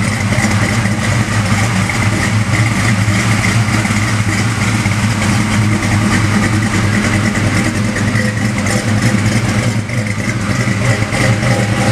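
1971 Chevrolet Nova's engine idling steadily through dual rear megaphone exhaust tips, the exhaust note a low, even pulsing.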